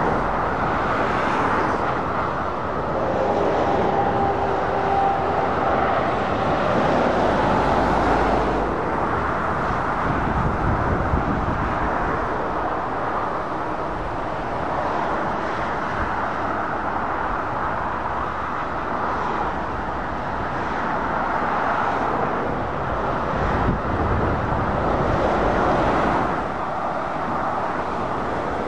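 Road traffic: heavy lorries and cars passing at speed, the engine and tyre noise swelling and fading several times as each vehicle goes by.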